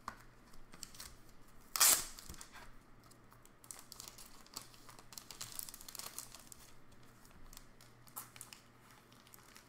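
Clear plastic trading-card sleeves and holders being handled, crinkling and clicking, with one sharp crackle about two seconds in and lighter crinkles over the next few seconds.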